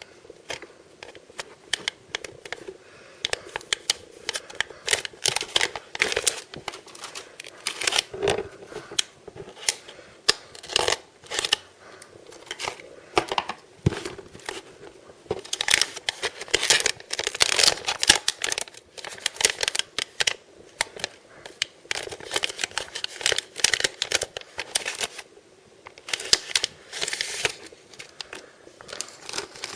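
Packaging being torn open and crinkled by hand: irregular crackling, tearing and rustling of wrappers, in uneven flurries.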